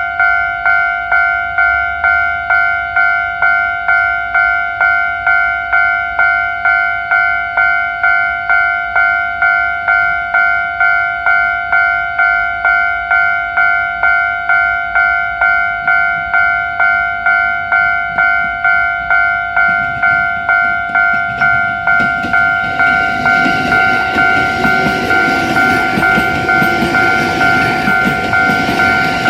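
Japanese level-crossing warning bell ringing, an electronic two-tone clang repeating a little under twice a second. About twenty seconds in, the rumble of an approaching Rinkai Line 70-000 series electric train rises and grows louder over the bell.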